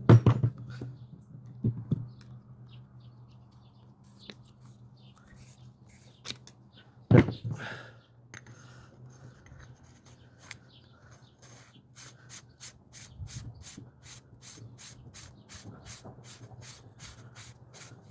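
Hand tools working on a hydraulic jack as a fitting is tightened: a few loud metal knocks and scraping, then a steady run of light clicks about three a second, over a low steady hum.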